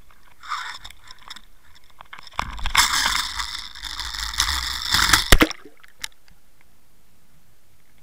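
Rushing, scraping noise on a Savage Gear Water Wolf line camera's microphone as the camera is swung through the air. It ends in a few sharp knocks as the camera hits the water about five seconds in, and after that the sound is suddenly dull and quiet underwater.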